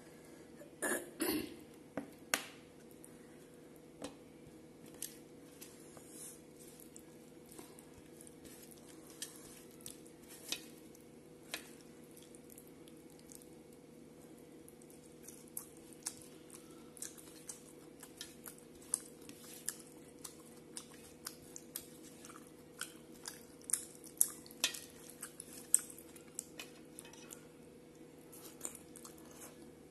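Close-up chewing and wet mouth smacks, with fingers mixing rice and curry on a steel plate: many short clicks and smacks at irregular intervals, the loudest about a second in and again in the last third, over a steady low hum.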